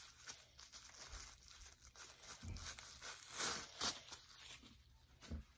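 Bubble-wrap packaging crinkling and rustling faintly as a plastic part is pulled out of it, with a few sharper crackles a little past halfway.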